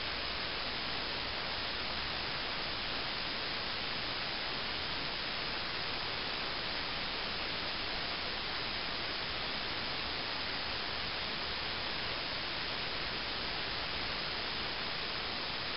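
Steady, even hiss with no other sound: room tone and recording noise in a silent hall.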